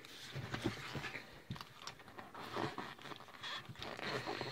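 Hands pushing a strip of old rubber inner tube in between a bicycle tire and its rim: irregular rubbing and scraping of rubber, with small knocks against the rim.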